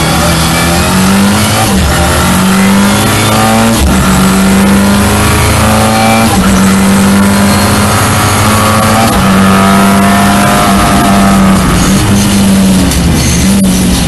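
Ford Escort RS Cosworth's turbocharged 2.0-litre four-cylinder engine, heard from inside the car under hard acceleration. It climbs in pitch through the gears with several upshifts, then eases near the end as the car lifts off.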